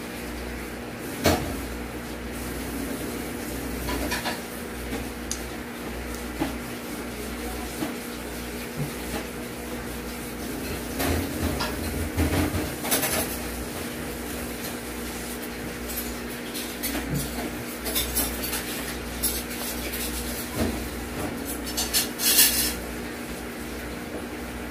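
Fried chicken being eaten by hand: crackles of crisp breading as it is torn and chewed, with scattered sharp clicks. The loudest bursts come about twelve seconds in and near the end.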